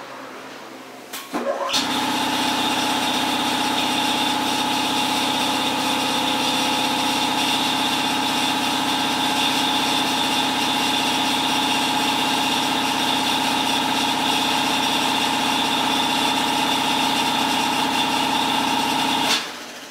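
A loud machine starts about a second and a half in, runs at one steady pitch without change, and shuts off abruptly near the end.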